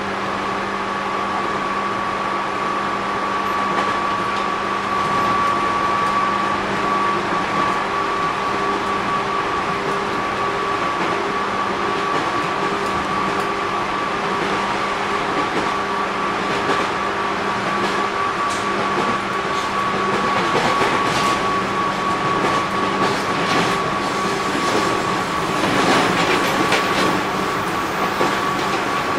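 JR 205 series 600 subseries electric train running, heard from inside the car. A steady high electrical whine sits over a lower hum, and wheel clicks over the rail joints grow more frequent in the second half.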